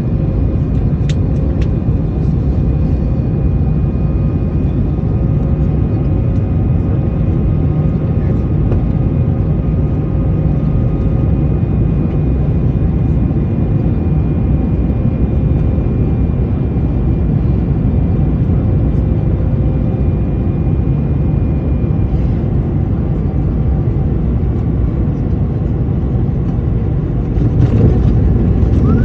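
Airbus A220 jet engines running with a steady low rumble and several faint, steady whines; the highest whine fades out about three-quarters of the way through.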